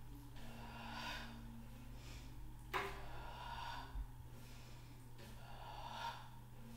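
A woman breathing slowly and deeply while holding a stretch: three long, airy breaths, the one near the middle starting with a sharper, louder intake.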